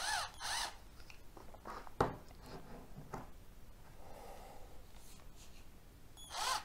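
A DEKO 12V cordless drill-driver's motor gives short trigger blips, each a brief whine that rises and falls in pitch, twice at the start and again near the end. Between them come clicks and taps from handling its plastic body, the sharpest about two seconds in.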